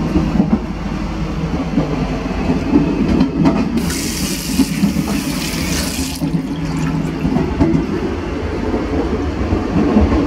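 Steady rumble of an electric train running, heard from inside its toilet compartment. In the middle, a washbasin tap runs water into the sink for about two seconds and stops.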